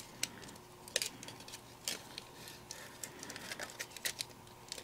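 Faint rustling of cardstock pieces being handled and adjusted by hand, with scattered light ticks and taps of the paper.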